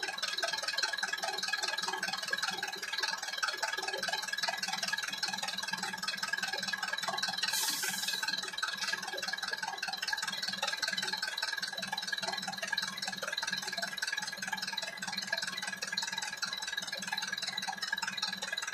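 Electronic warning bell of an AŽD 97 level-crossing signal ringing continuously while its red lights flash. A brief hiss comes about eight seconds in.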